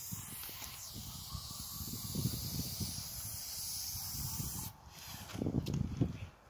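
Aerosol spray-paint can hissing steadily as paint is sprayed onto a wall, cutting off sharply about three-quarters of the way through; a few low, dull bumps follow.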